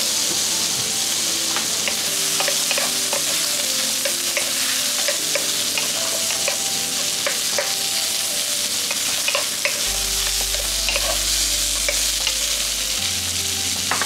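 Salmon and mushrooms sizzling in butter in a frying pan, stir-fried with wooden utensils: a steady sizzle with frequent scrapes and taps of the utensils against the pan.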